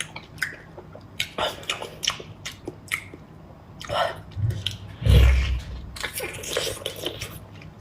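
A person biting into and chewing a large abalone in garlic sauce: wet mouth noises with scattered short clicks. There is a low thump about five seconds in.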